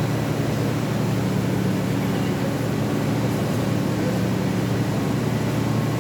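Absorbent cotton making machine running, a steady low hum with an even mechanical noise over it.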